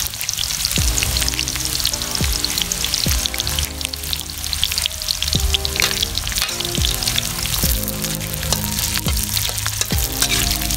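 Food sizzling and crackling in hot oil in a pan, over background music with a steady beat.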